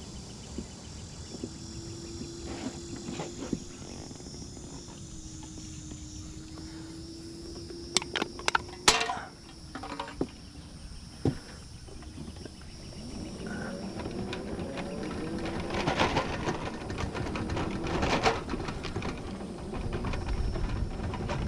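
Electric mobility scooter running over bumpy grass: a steady motor whine with rattles, a few sharp knocks about eight seconds in, then a louder rumble building through the second half. Insects chirr steadily in the background.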